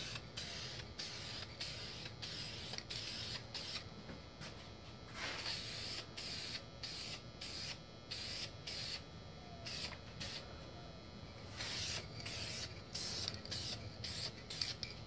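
Aerosol clear coat spraying in a quick run of short hisses, roughly two a second, with a longer spray about five seconds in, as a coat of clear goes onto a painted motorcycle helmet.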